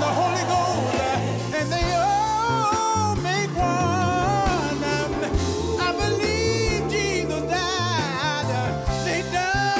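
Gospel song: voices singing with vibrato over a band with a steady bass line.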